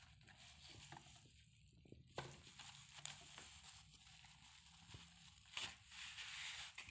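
Faint crinkling and rustling of plastic bubble wrap being pulled off a kitchen scale, louder about two seconds in and again near the end.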